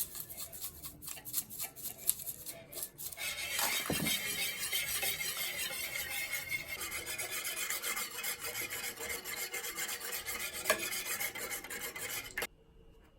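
Egg mixture being whisked in a bowl: a few light clicks, then from about three seconds in fast, continuous scraping strokes against the bowl that stop abruptly near the end.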